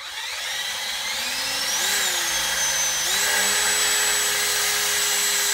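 Cordless drill boring holes through an aluminium plate, its motor whine climbing in pitch over the first couple of seconds, stepping up once more, then running steady.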